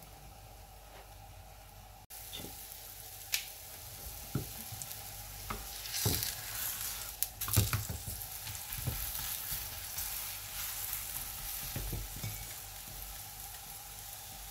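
Mooli besan paratha sizzling on an iron tawa, a steady frying hiss that gets louder after an abrupt cut about two seconds in. A handful of sharp clicks and scrapes from metal tongs against the pan as the paratha is turned over.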